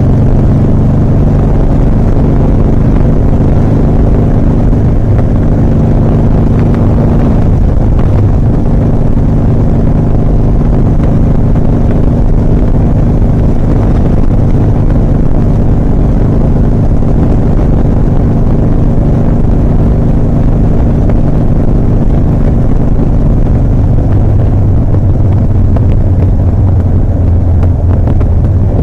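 2007 Harley-Davidson Softail Custom's Twin Cam 96 V-twin running steadily while riding on the road, loud and low-pitched. The engine note shifts about seven seconds in and again near the end.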